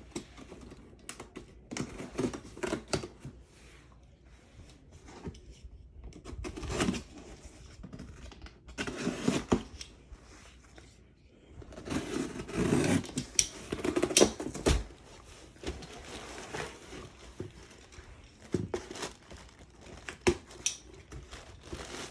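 Cardboard shipping package being opened by hand: irregular scraping, tearing and crinkling of tape, cardboard and packing material, with scattered knocks. The busiest, loudest handling comes about halfway through, with one sharp knock.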